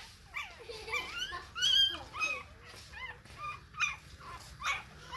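Newborn puppies whimpering and squealing: short, high-pitched cries that waver up and down in pitch, about two a second.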